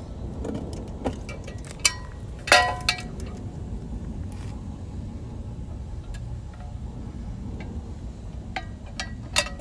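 Several light clinks that ring briefly, the loudest about two and a half seconds in and a few more near the end, over a low steady rumble.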